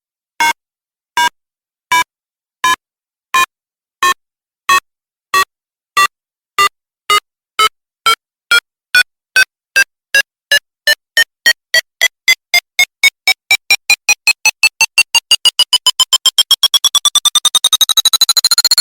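Electronic countdown beeps, like a bomb timer, speeding up steadily from a bit over one beep a second to a rapid stream. The pitch climbs from a mid tone to a high one as the beeps build toward a boom.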